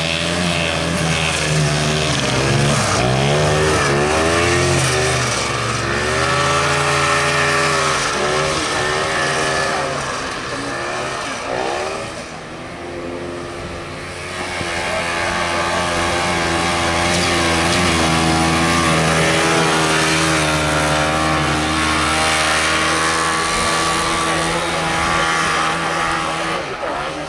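Old air-cooled snowmobile engines warming up and revving, pitch rising and falling repeatedly over the first several seconds, then running more steadily from about halfway.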